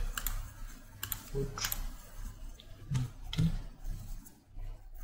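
A handful of scattered computer mouse clicks, made while choosing items from dropdown menus, over a steady low hum.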